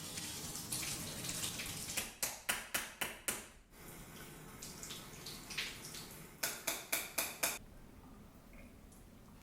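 Cold water running from a tap over a vacuum cleaner filter being rinsed, fading away, then two runs of five sharp knocks about a third of a second apart, the filter being tapped to shake the water out.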